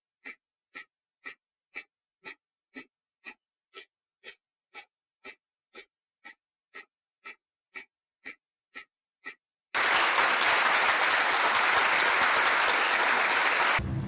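Countdown-timer clock ticking, about two sharp ticks a second; a little under ten seconds in it stops and loud applause starts, the louder of the two sounds.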